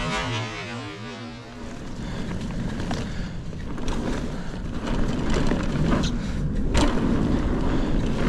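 Mountain bike riding along a dirt trail: tyre and wind noise builds as it picks up speed and stays loud. There is a sharp knock at the very start and another about seven seconds in.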